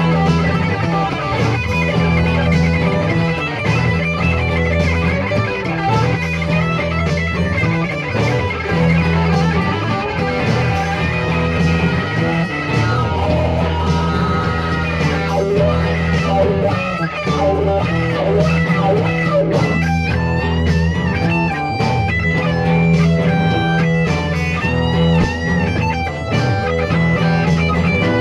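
Rock band music with no singing: electric guitar playing over a bass guitar line, with bent, wavering guitar notes in the second half.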